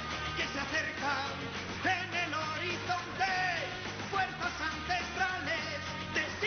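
Rock TV theme song with sung Spanish-language vocals over a steady bass line and beat.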